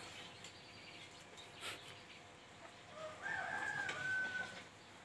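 A rooster crowing once, about three seconds in: a rising start, then a held note lasting about a second and a half. A short knock comes before it.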